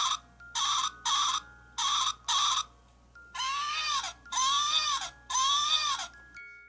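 Electronic baby doll's voice box, set off by pressing on the doll's tummy. It gives three pairs of short baby sounds, then three longer cries that rise and fall in pitch.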